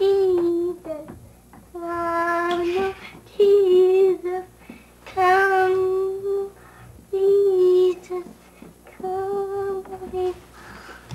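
A young child singing a string of long held notes, about seven of them, each sung on one steady pitch with short pauses between.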